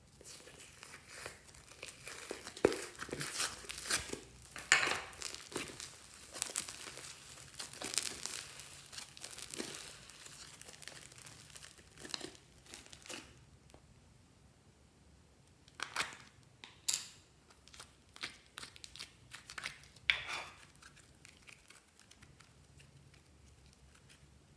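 Blue slime being peeled out of a plastic mould and stretched and folded by hand, with sticky crackling and popping. The crackles are dense for the first half, stop briefly, then return as a sparser run of pops.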